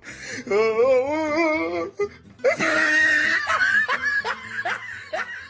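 Laughter sound effect laid over music: a drawn-out wavering voice, then a quick run of rising laughs.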